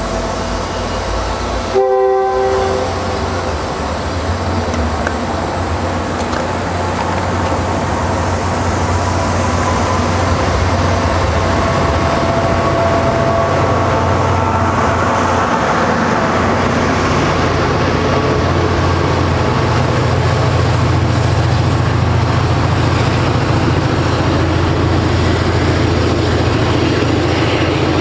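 MBTA commuter rail train moving past the platform: a short horn blast about two seconds in, then a steady low rumble of the train rolling that grows louder in the second half.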